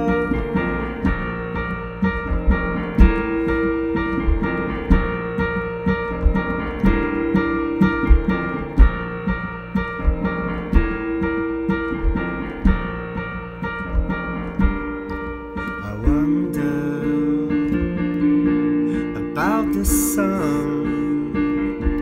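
Electric piano played on a red Nord stage keyboard: held chords over a low bass line. A voice comes in near the end.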